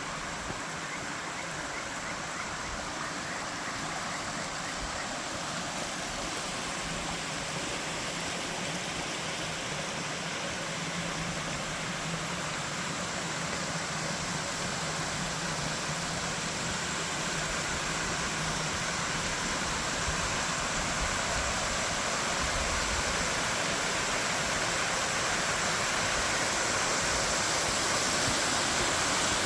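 Waterfall rushing: a steady, even hiss of falling water that grows slowly louder.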